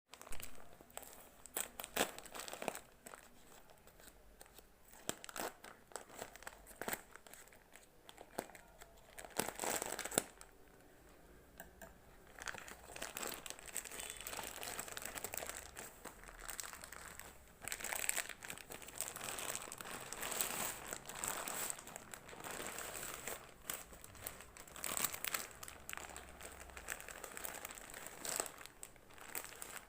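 Plastic packaging being crinkled, handled and torn open by hand, with repeated sharp crackles and stretches of rustling.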